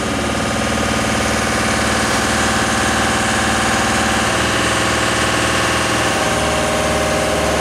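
Engine of an aerial work platform running steadily while the lift raises its basket, its note shifting slightly about four seconds in and again around six.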